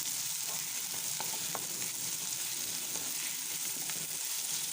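Chopped onion, capsicum, garlic and ginger sizzling steadily in hot oil in a pan, with a couple of light clicks of stirring about a second in.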